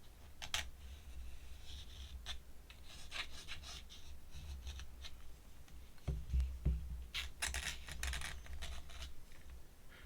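Pen scratching on paper in short, scattered strokes, with clusters of quick strokes about three seconds in and again near the end.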